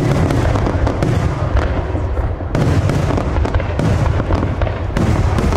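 Aerial fireworks display: shells bursting in quick succession, a continuous rumble of booms mixed with crackle. Fresh sharp bursts come about two and a half seconds in and again near the end.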